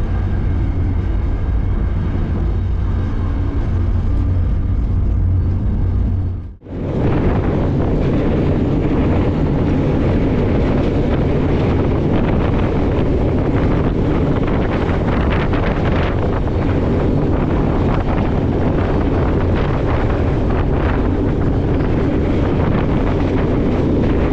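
Freight car rolling at speed: a steady rumble of steel wheels on rail with fine clattering, and wind buffeting the microphone. The sound drops out briefly about six and a half seconds in.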